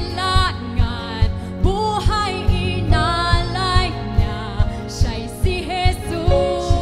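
Upbeat Tagalog Christian worship song: a singer's voice over a band with a steady beat.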